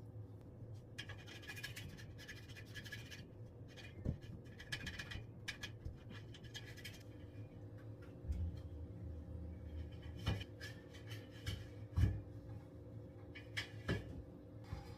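Scrubbing while a washing machine is cleaned: short bursts of scratchy strokes, with a few sharp knocks in between, over a low steady hum.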